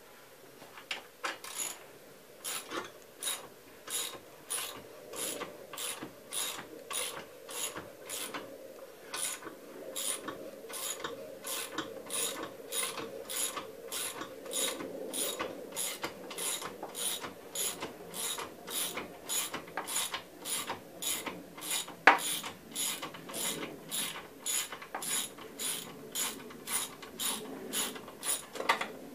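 Ratchet wrench clicking steadily, about two strokes a second, as a nut is worked on a MerCruiser Bravo One outdrive's bell housing. One sharper, louder click about two-thirds of the way through.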